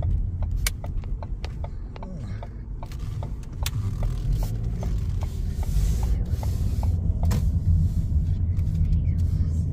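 A car's turn signal ticking steadily, about three clicks a second, over the low rumble of the engine and tyres heard from inside the cabin. The engine note rises about two seconds in as the car pulls away into the turn.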